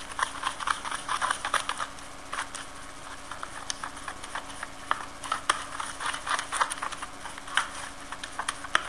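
Plastic spoon stirring a thick, creamy mix of mayonnaise, shampoo and conditioner in a plastic bowl, with irregular light clicks and taps of the spoon against the bowl.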